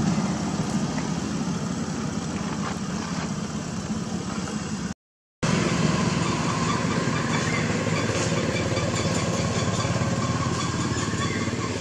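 Steady engine-like running drone with a fine rapid pulse, dropping out for about half a second near the middle.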